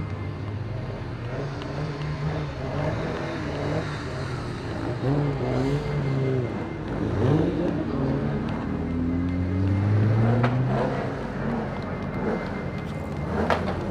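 AC Cobra's V8 engine running and being revved, its pitch rising and falling repeatedly, loudest about ten seconds in.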